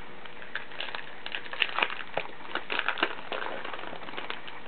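Crinkling and crackling of a foil trading-card pack wrapper being torn open and the cards handled: irregular small crackles, busiest in the middle.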